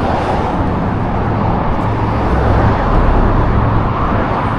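Traffic passing on a busy road close by, a steady noise with a low rumble that swells about two to three seconds in as a vehicle goes past.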